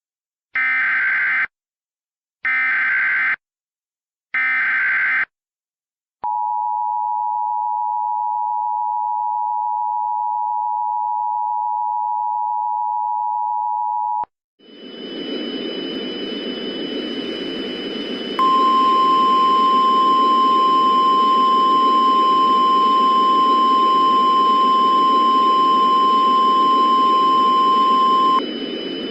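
Emergency Alert System sequence. Three short screeching SAME data bursts open it, then the harsh two-tone EAS attention signal holds steady for about eight seconds. After it comes a hiss of radio static, and over the static a single steady NOAA Weather Radio alert tone sounds for about ten seconds and cuts off near the end.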